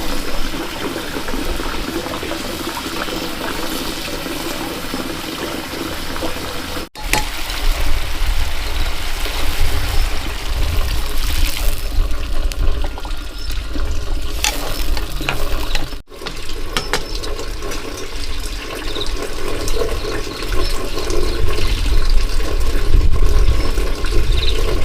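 Water running and splashing, a loud steady rush, broken by abrupt cuts about 7 and 16 seconds in.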